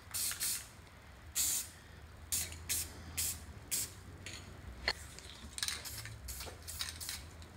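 Aerosol spray-paint cans hissing in about a dozen short, quick bursts, with a single sharp click about five seconds in.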